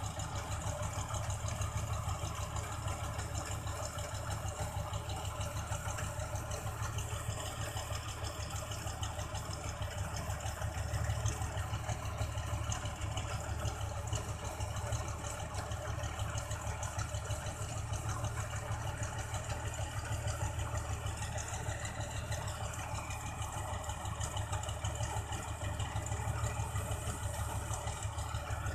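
New Holland combine harvester's diesel engine running steadily while its unloading auger pours rice grain into a truck, a constant low hum with an even mechanical hiss over it.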